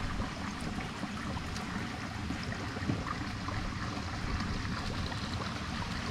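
Steady water sound: gentle lapping and trickling.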